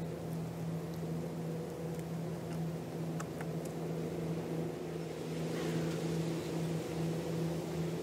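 A steady, low mechanical hum like a running engine, with a few faint clicks a little past the middle.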